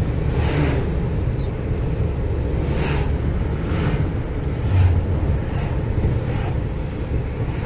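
Inside the cab of a GAZelle Next van on the move: steady engine and road drone with a faint steady whine and a few soft bumps. The driver suspects the whine from the rear comes from the driveshaft hanger bearing or a pinion that needs tightening.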